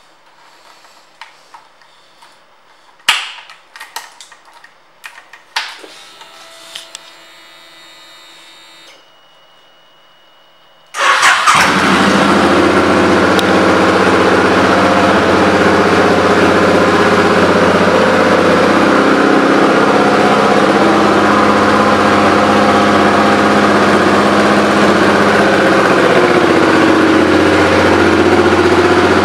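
A few clicks and knocks, then about eleven seconds in the 2006 Suzuki Boulevard C50's 805 cc V-twin, fitted with aftermarket pipes, starts and settles into a steady idle.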